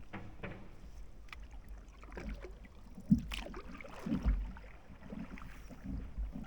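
Canoe being paddled: paddle strokes and water sloshing over a low rumble, with a sharp knock about three seconds in and a duller thump about a second later.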